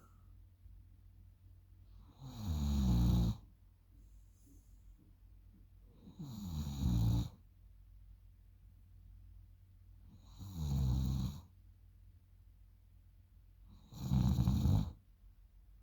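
A sleeping girl snoring: four rattling snores, each about a second long, coming about every four seconds.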